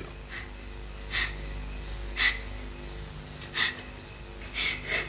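A man sipping hot coffee from a cup, about five short slurps spread over a few seconds, with faint steady background music underneath.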